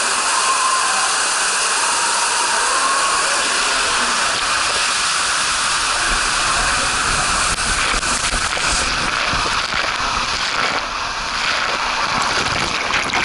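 Water rushing down an enclosed tube water slide as a rider slides through it: a steady rushing hiss. From about halfway through, low rumbling joins it, with irregular thuds and splashes as the rider's body hits the water and the tube walls.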